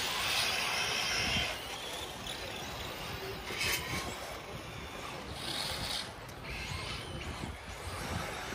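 Electric radio-controlled off-road cars running on a dirt track: a hiss of tyres and drivetrain swells and fades as they pass, with a sharp click about three and a half seconds in.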